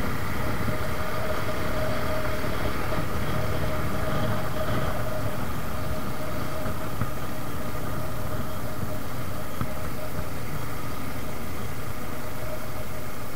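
Suzuki Gixxer motorcycle's single-cylinder engine running at a steady cruise, with wind rushing over the rider's camera microphone.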